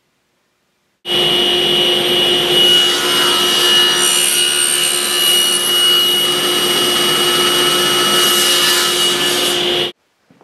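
Power saw running and cutting wood: a steady high whine over the rasp of the cut. It starts abruptly about a second in and cuts off just before the end.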